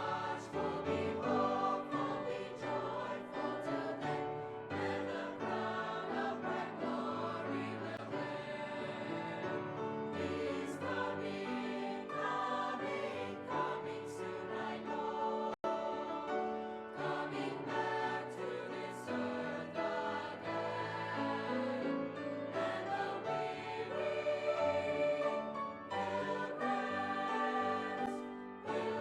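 Choral music: a choir singing sustained, slowly moving sacred harmonies, with a split-second dropout about halfway through.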